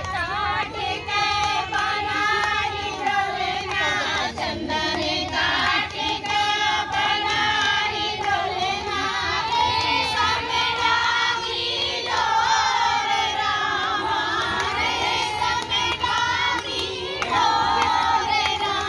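Several high voices singing a Bagheli Sawan folk song together, with short percussive taps under the singing.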